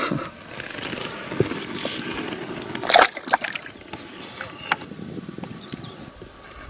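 A caught fish let go back into the river, hitting the water with one short, sharp splash about three seconds in, with lighter water sloshing around it.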